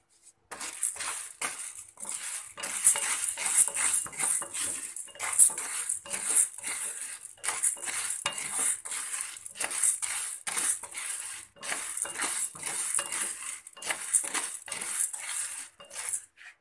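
Whole urad dal being stirred with a wooden spatula in a dry steel pan on the stove: the hard little beans rattle and scrape against the steel in quick repeated strokes, the start of dry-roasting them.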